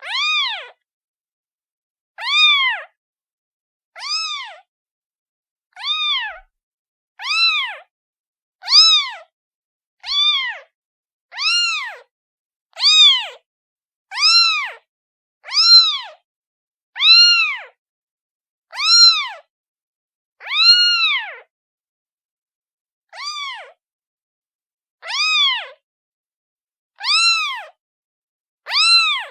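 Kitten meowing over and over, about one meow every one and a half seconds, each meow rising then falling in pitch: a kitten calling.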